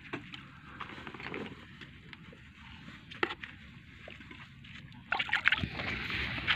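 Water sloshing and splashing, with scattered small knocks and clicks of handling; it grows louder about five seconds in.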